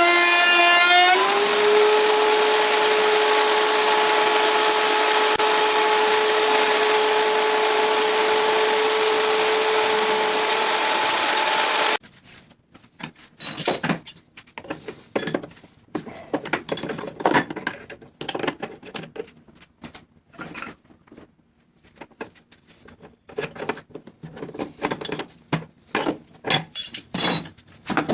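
Wood router motor spinning up to speed, then running steadily with a high whine. About twelve seconds in it cuts off abruptly, followed by a string of short, irregular bursts of noise.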